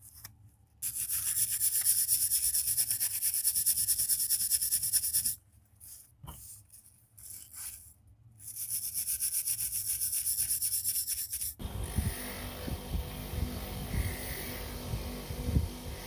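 Hand wire brush scrubbing rust off a small pocket-knife part in fast back-and-forth strokes, in two spells with a short pause of a few light taps between. Near the end it gives way to a bench motor's buffing wheel running with a low hum as a knife part is polished against it.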